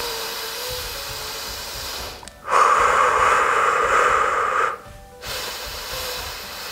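A woman breathing audibly in time with an exercise: three long breaths of about two seconds each, the middle one loudest, with faint background music.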